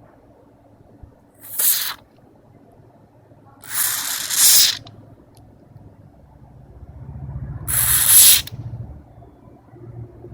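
Three short hissing spray bursts, like aerosol lubricant sprayed into a switch, the second and third a little longer; a low hum rises under the third.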